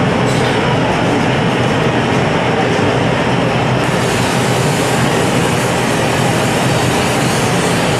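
Steady loud roar of gas torch flames and furnace burners in a glassblowing hot shop; the hiss grows brighter about four seconds in.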